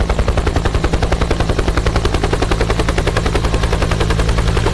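Bell UH-1 Huey helicopter hovering low, its two-blade main rotor beating in a fast, even chop of about ten beats a second over a steady low hum.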